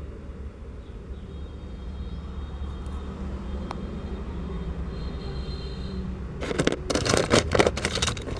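Steady low rumble, with a single click a few seconds in, then near the end about two seconds of rapid, loud clattering, as of small toy cars knocking together.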